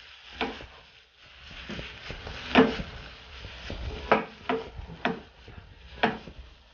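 Nonstick frying pan being shaken and tossed on a gas stove: a handful of separate knocks and thumps as the pan bumps the grate and the plantain gnocchi slide and tumble in the butter, the loudest about two and a half seconds in.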